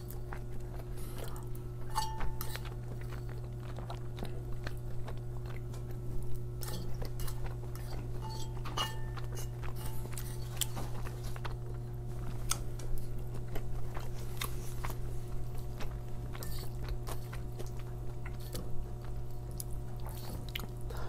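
Close-up mouth sounds of a person chewing soft food, bacon cheeseburger rice and spaghetti, with scattered light clicks and scrapes of a fork against plates. A steady low hum runs underneath.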